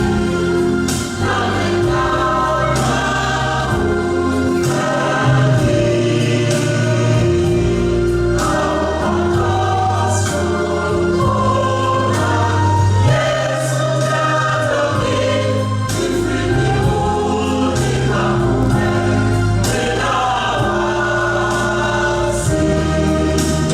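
A choir singing gospel music over instrumental accompaniment with a moving bass line.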